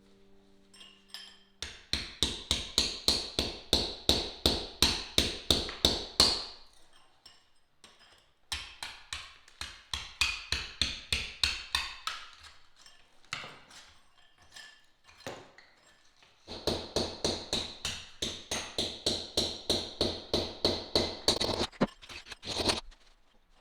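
Hammer blows on a chisel, chipping at bricks and cement mortar packed into an old fireplace opening, in quick runs of about three strikes a second with short pauses between the runs.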